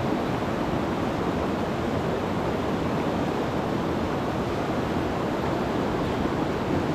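River rapids: water rushing steadily over rocks in a whitewater riffle.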